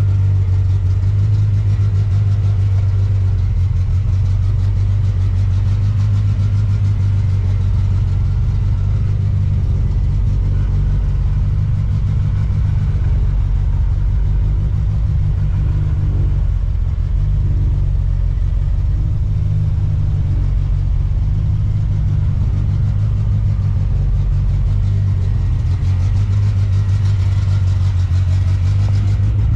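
Volvo B230 2.5-litre stroker turbo four-cylinder idling steadily, a loud, even low-pitched engine note with no revs.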